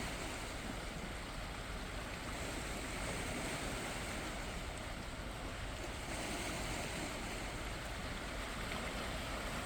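Gentle sea waves washing in: a steady wash of water noise that swells and eases slightly.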